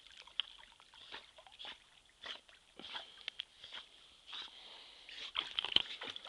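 American Staffordshire terrier swimming in a river: water splashing in short, irregular bursts as it paddles, growing louder and busier near the end.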